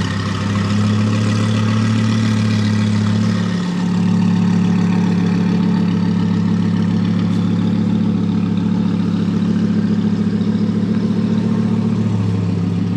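Audi R8's naturally aspirated 5.2-litre V10 idling steadily through a newly fitted B-Rogue titanium valved aftermarket exhaust. The tone shifts slightly about four seconds in.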